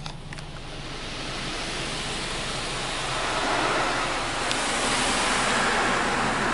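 Water spraying onto the car from the arm of a Belanger Saber SL1 automatic car wash, heard from inside the car as a steady rush. It grows louder over the first few seconds as the spray reaches the windshield.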